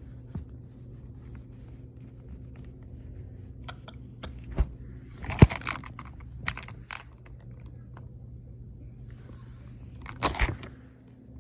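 Handling noise: a few sharp knocks and crunchy rustles, loudest around the middle and again near the end, over a steady low hum.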